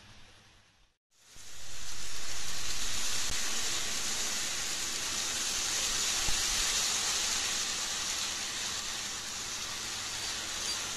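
N-gauge model train running along the track: a steady rushing hiss from its wheels and running gear. It starts abruptly after a brief silence about a second in, is loudest just after it starts, and then eases slightly.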